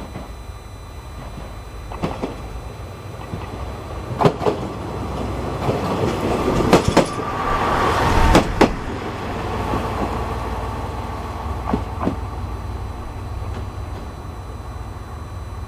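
JR West KiHa 121 diesel railcar going past, its rumble swelling to a peak about eight seconds in and then fading, with wheels clacking over rail joints in sharp pairs.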